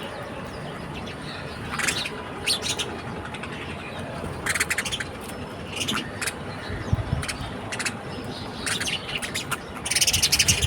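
Small birds chirping in short bursts every second or two, with a denser spell of chirping near the end, over steady background noise.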